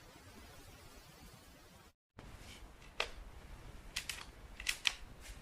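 Faint hiss that cuts out completely for a moment about two seconds in. It is followed by four or five short, sharp clicks spread over the last couple of seconds.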